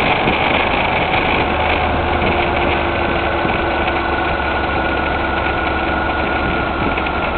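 Motorcycle engine running steadily, a dense even drone with a couple of steady tones and no change in revs.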